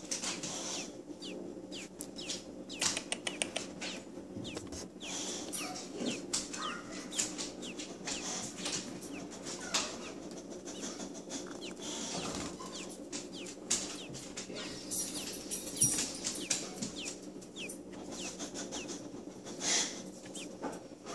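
Baby robins giving short, thin peeps scattered through, over soft clicks and rustling from the feeding syringe and towel being handled.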